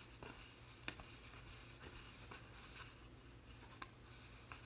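Near silence, with a few faint, irregular ticks of Allen & Ginter baseball cards being slid past one another in the hand as a pack is flipped through.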